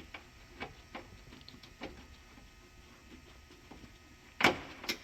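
Light metal clicks and taps from hand tools and a bolt being fitted into a car's radiator mounting bracket, spaced irregularly, with two louder metallic knocks near the end.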